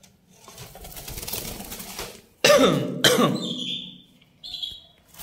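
A person coughs twice in quick succession, then a canary gives two short, high chirps.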